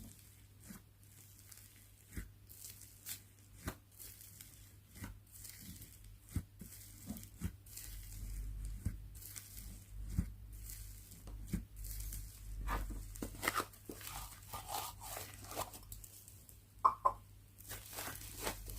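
Slime being stretched and squeezed by hand, giving irregular crackling clicks and pops with some short squelchy squeaks; one sharp squeaky pop about seventeen seconds in is the loudest.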